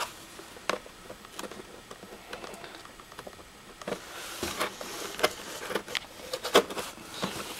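Cardboard box being opened: a blade scraping and cutting packing tape, with scattered clicks and rustling of cardboard flaps being handled, busier and scratchier from about halfway through.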